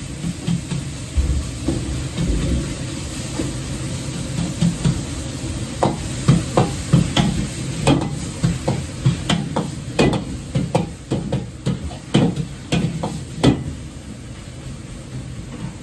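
Minced pork sizzling in a large steel wok over a gas burner, stirred and scraped with a metal ladle. From about six seconds in, the ladle clanks against the wok many times in quick succession.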